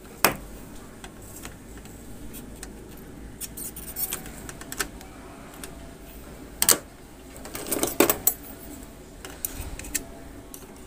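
Scattered sharp clicks and taps of a metal tool on a satellite receiver's circuit board and steel chassis as small transistors are taken off the board. The loudest come about a third of a second in, near seven seconds and around eight seconds, over a low hum.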